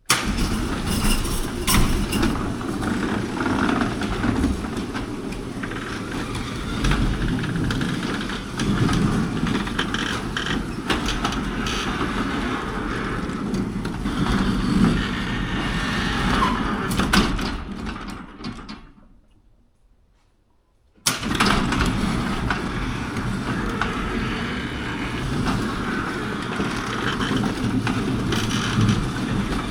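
Large overhead garage door running open on its motor, a steady mechanical rumble and rattle, test-run after a makeshift fix for its cable catching on the door. The sound fades out about two-thirds of the way through, and after a short near-silent gap it cuts back in abruptly.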